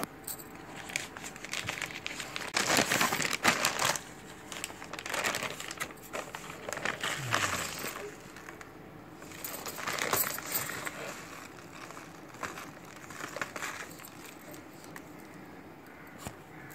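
Plastic bag crinkling in irregular bursts as a hand rummages inside it and scoops out dry grains.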